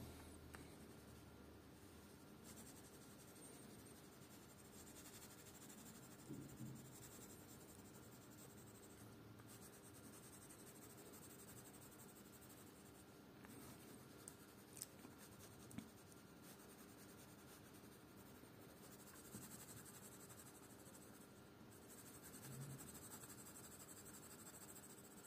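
Faint scratching of a pink coloured pencil on paper, shading in short strokes, with a few soft ticks of the pencil tip near the middle.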